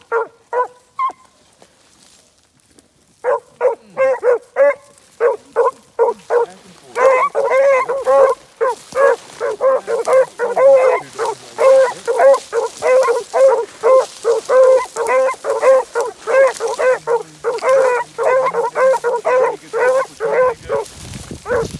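Beagle hounds barking on a rabbit track: a few short barks, a pause of about two seconds, then steady, rapid barking at about three barks a second that continues to the end.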